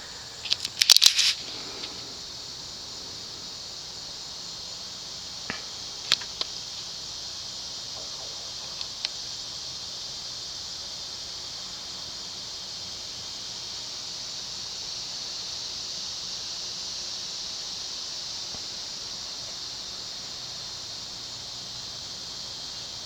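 Cast-aluminium ceiling fan coasting down after being switched off, over a steady high hiss. A brief high squeal about a second in and a few light ticks a few seconds later.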